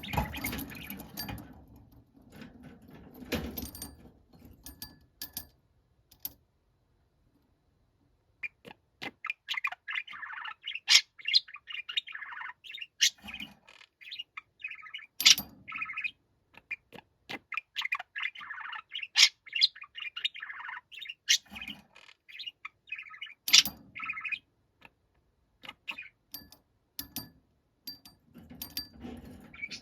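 Budgerigar chattering: a dense run of rapid chirps, warbles and sharp clicks for most of the middle, thinning to scattered ticks near the end. Before the chatter starts, a few seconds about a quarter of the way in are silent.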